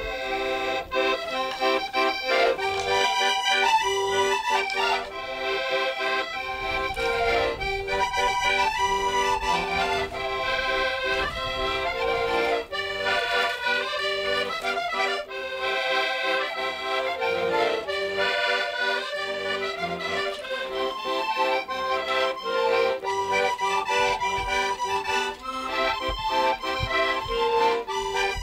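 Diatonic button accordions (Portuguese concertinas) playing a traditional folk tune, the melody moving over a mostly steady held lower note.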